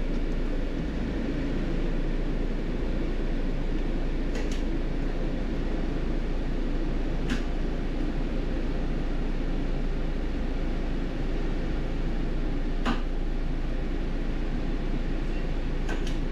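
Steady hum and fan-like hiss inside a stationary motorhome's cab with the engine idling, with four faint ticks spread through it.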